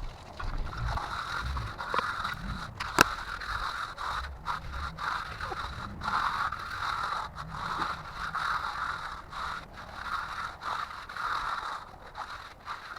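Steel concrete finishing tool scraping in repeated back-and-forth strokes across a freshly poured, still-wet concrete slab, with a sharp click about three seconds in.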